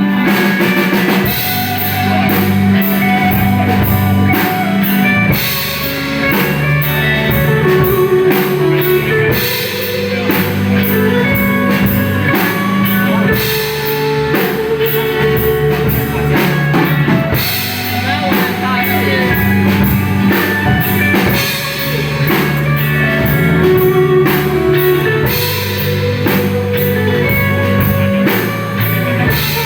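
Live rock band playing: drum kit keeping a steady beat under electric guitars and bass guitar.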